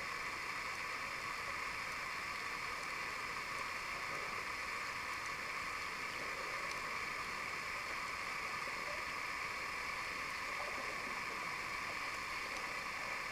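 Steady underwater noise picked up by a camera held under the sea: an even, muffled hiss that does not change, with a few faint tiny clicks.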